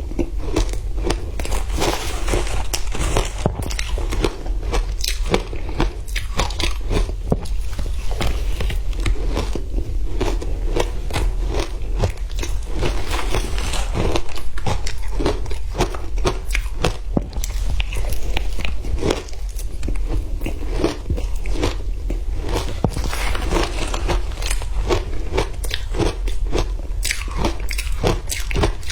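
Frozen matcha ice being bitten and chewed close to the microphone: a dense, irregular run of sharp cracks and crunches as the ice breaks between the teeth, over a steady low hum.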